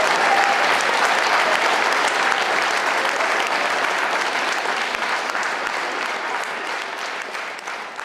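Audience applauding after a song, a dense patter of many hands clapping that fades out gradually toward the end.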